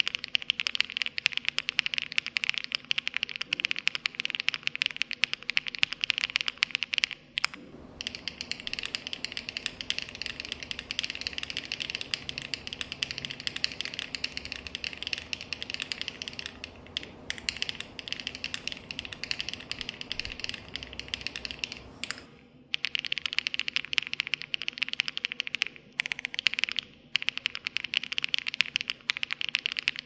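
Fast, continuous typing on a Wobkey Crush 80 mechanical keyboard, a dense run of quick keystroke clacks. The recording's tone changes about seven seconds in, with more background hiss under the keys, and changes back about twenty-two seconds in as it switches between two microphones.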